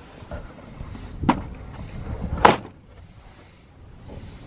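Plastic tiered tool organizer being handled as its top tray is shifted back to open the lower bins: two sharp plastic clacks a little over a second apart, the second the louder.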